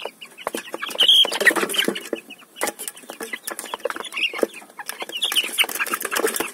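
Australorp hens clucking with short repeated calls while pecking at chicken feed in a plastic feeder, the beaks making a quick, irregular run of clicks on the feed and pan.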